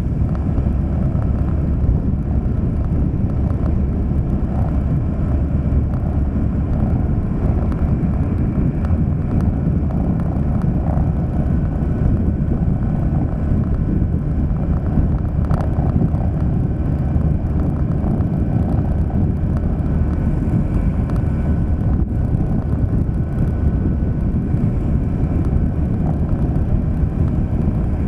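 Steady low rumble of a vehicle driving along a road: engine and tyre noise, unbroken throughout.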